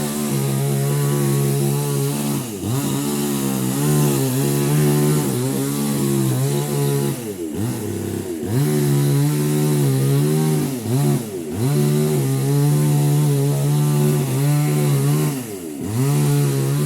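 Two-stroke chainsaw cutting wood, running at high speed with its pitch dipping sharply several times as the chain bogs in the cut or the throttle eases, then picking back up.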